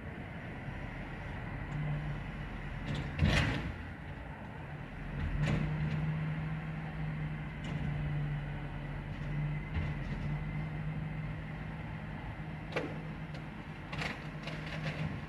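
Rear-loader garbage truck with a Garwood body: a loud bang about three seconds in as a wheelie bin is emptied into the hopper, then the engine holds a steady raised hum from about five seconds in while the hydraulic compactor sweeps the rubbish into the body, with scattered knocks and clatters.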